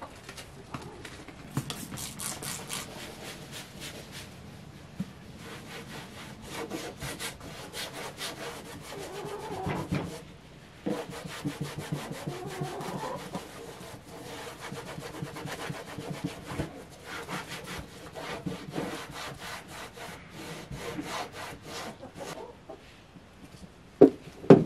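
Rag scrubbing a plastic cooler in runs of quick, rhythmic rubbing strokes with short pauses. A single sharp knock near the end.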